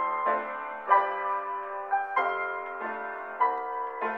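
Instrumental background music, with new notes and chords struck every half second or so.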